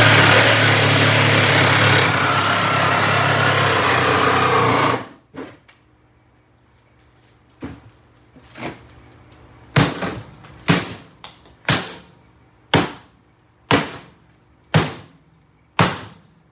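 A power tool runs loudly and steadily, then cuts off about five seconds in. After a short pause come about nine sharp strikes, roughly one a second, as the Kenmore mini fridge is hammered.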